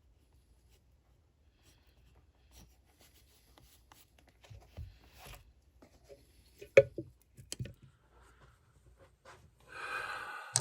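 Light handling noises at a shoe-repair bench: scattered soft taps and clicks, one sharp click about seven seconds in, and a short rubbing or scraping sound near the end.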